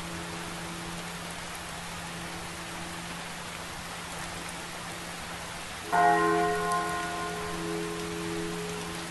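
Steady rain, with a church bell struck once about six seconds in and ringing on as it fades.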